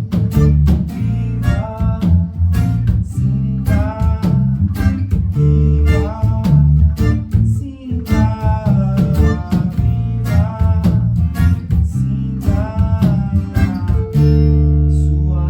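A band playing a song: strummed acoustic guitar over a bass line, with a voice singing a melody in short phrases. Near the end a final chord is held and rings out, fading slowly.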